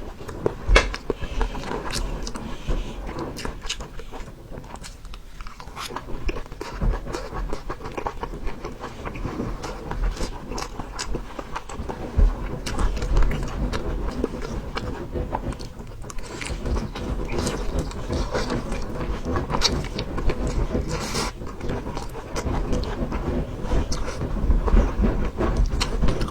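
Close-up mouth sounds of a person eating Xinjiang-style fried rice noodles: steady chewing with many small sharp clicks and crackles.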